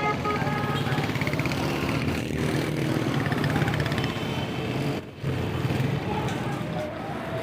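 Street traffic with vehicle engines running and voices in the background; a car horn toots briefly at the start.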